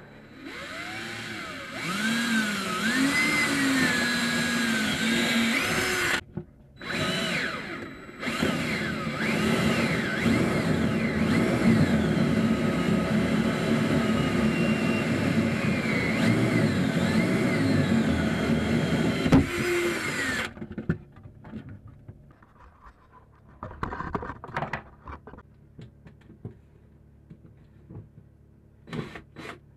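Cordless drill boring through a round backing plate for a thru-hull, its motor pitch rising and falling as the bit loads up. It stops briefly around six seconds in and again just before eight seconds, then runs until about twenty seconds in, followed by a few faint knocks.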